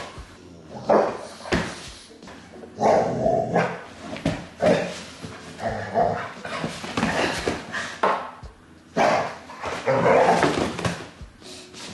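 A dog barking repeatedly in short, irregular bursts, about one every second or so, with a longer run of barks near the end.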